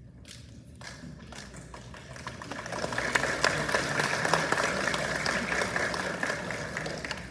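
Audience clapping: a few scattered claps at first, swelling into steady applause about three seconds in and easing off near the end.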